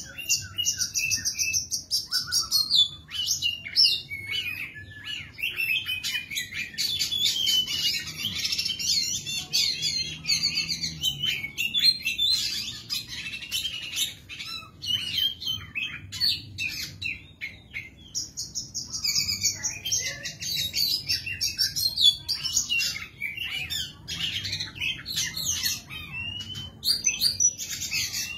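Caged oriental magpie-robin in full, continuous song: a loud, rapid, varied stream of whistles, trills and chattering notes, briefly quieter about two-thirds of the way through.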